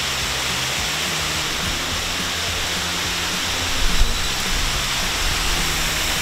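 Steady loud rushing noise, like wind and water spray, with faint low held notes underneath and a short thump about four seconds in.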